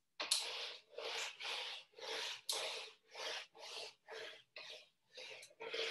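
Whiteboard duster wiping marker writing off a whiteboard: a run of quick rubbing strokes, about two a second.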